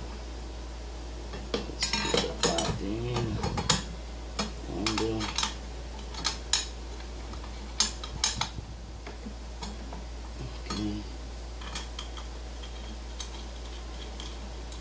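Metal clinks and knocks from a toothed steel-cutting circular saw blade being handled and fitted back onto the saw's arbor, in clusters about two to four seconds in and again around six to eight seconds in, with a few lighter taps later.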